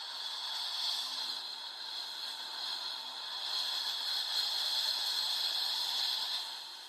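A hiss of noise that swells in, holds steady, and fades away near the end: the closing noise of a black metal track.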